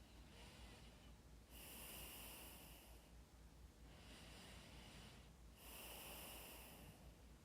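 Slow breathing close to the microphone, faint: two full breaths, each a softer intake followed by a longer, stronger breath out.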